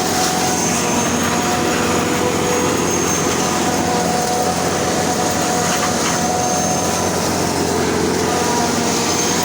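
Combine harvester running steadily through corn: an even, loud machine drone with several high, constant whines held throughout.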